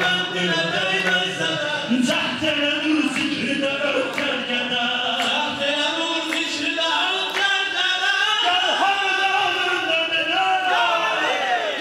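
Men singing a Shia mourning chant (mersiyye) into microphones over a sound system, with a sharp beat about once a second keeping time.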